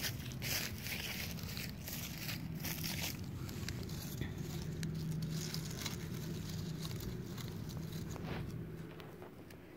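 Dry fallen leaves crackling and rustling as a small puppy scampers, noses and rolls through them, busiest in the first three seconds and sparser after.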